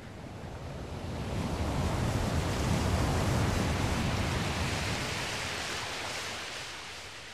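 Sea surf washing in over shallow sand on the rising tide: a rush of water that builds for about two seconds, peaks about three seconds in, then slowly fades away.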